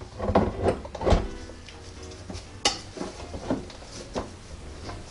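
Metal bread pan of a Kuissential bread machine being seated and twisted into its locking base: a run of clunks and scrapes in the first second or so, then a few single sharp clicks.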